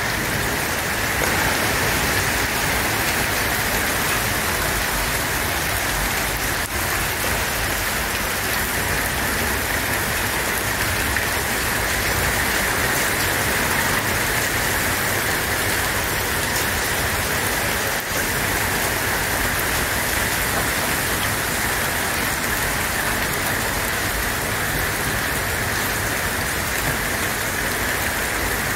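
Steady rain falling on the ground and surfaces, an even, unbroken hiss.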